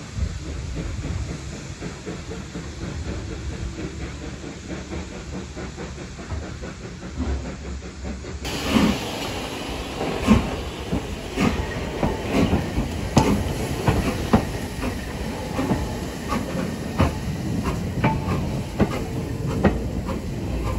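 Steam locomotive, a BR Standard Class 4 4-6-0, moving slowly: a steady low rumble at first, then from about eight seconds in, close by, a run of irregular metallic clanks from its wheels and motion over a hiss of escaping steam.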